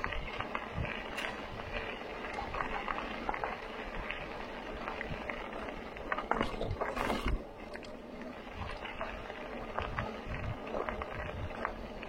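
Steady rolling and crunching of wheels over a rough, muddy dirt trail, with scattered clicks and rattles and a louder clatter about six to seven seconds in.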